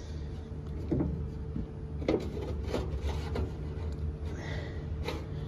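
Steady low machinery hum with a constant tone, broken by a few light knocks and clicks.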